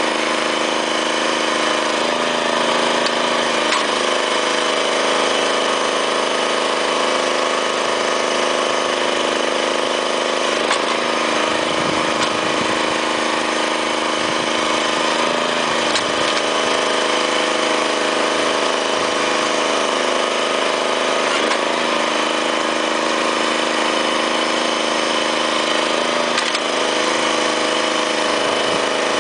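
Small engine powering a truck-mounted hydraulic well rig, running steadily at constant speed, with a few faint clicks over it.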